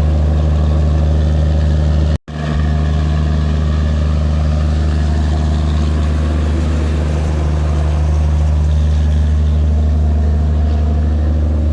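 Diesel generator set in an Indian Railways end-on-generation power coach running steadily, a loud, even low hum with a mechanical drone over it. The sound cuts out for a split second about two seconds in, then resumes unchanged.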